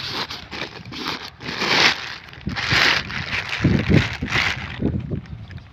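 Thin plastic sheet rustling and crinkling as it is handled and pulled back, in several bursts, with a few dull knocks around the middle.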